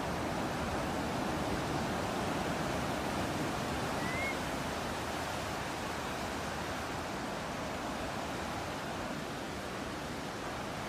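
Steady ocean surf and breeze, a continuous even wash of noise, with a single short rising bird chirp about four seconds in.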